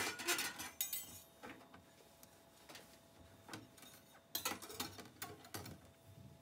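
Clicks and knocks of things being handled and set down at a gas stove during wiping-down. A sharp knock comes right at the start, then scattered lighter clicks, with a busier run of clatter about four and a half seconds in.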